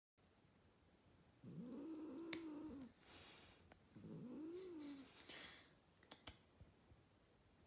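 Domestic cat giving two drawn-out, low meows, each rising and falling in pitch, while its claws are trimmed. A single sharp click of the nail clipper comes during the first meow, and a few fainter clicks follow near the end.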